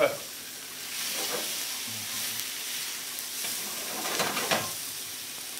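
Prawns frying and sizzling in a cast-iron skillet with a steady hiss, stirred with a wooden spoon.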